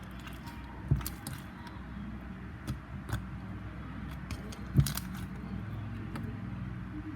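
Knocks and light clicks from handling slime-making materials and containers, the two loudest about a second in and near five seconds, over a steady low hum.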